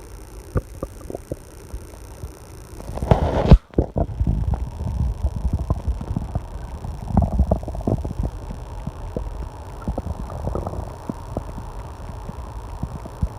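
A person's stomach growling: irregular low rumbling and gurgling that swells loudest about three seconds in, cuts out for a moment, then carries on in bursts of gurgles.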